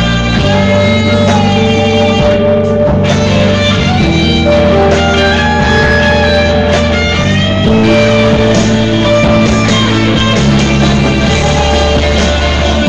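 Rock-style guitar jam: loud held chords and sustained notes that change every second or two.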